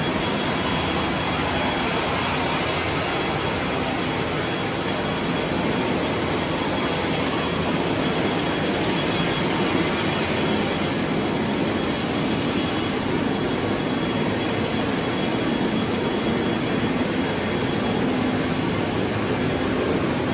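Steady rushing roar of a jet aircraft's turbine running on the airport apron, with a thin high whine held on one pitch.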